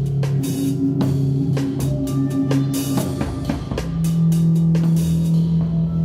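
Live band playing: a drum kit keeps a steady beat of kick, snare and cymbal strokes over sustained low, distorted-sounding notes, which move up to a higher held note about four seconds in.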